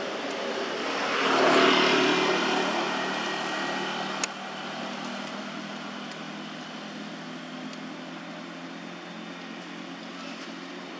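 A motor vehicle passing on the road, its noise swelling to a peak about a second and a half in and then fading to a steady low hum. A single sharp click about four seconds in.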